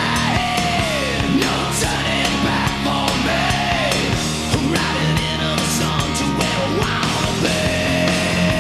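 Hard rock song with electric guitar lead playing notes that bend up and down over bass and drums, ending on a long held note near the end.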